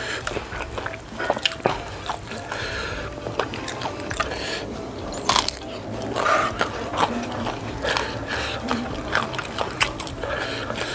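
Close-miked chewing of spicy Mie Gacoan noodles, with many short sharp mouth clicks.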